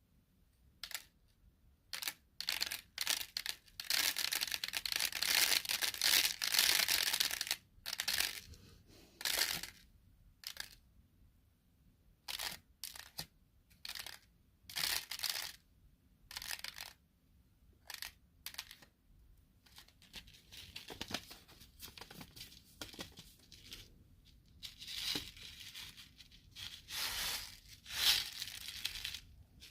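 Paper seed packets handled close to the microphone, giving irregular crinkling and sticky peeling and tearing noises in short bursts. Longer runs of continuous rustling come about four to seven seconds in and again near the end.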